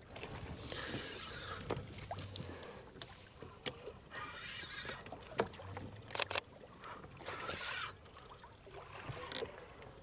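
Water sloshing and splashing against a fishing boat's hull in surges about a second long, with a few sharp knocks.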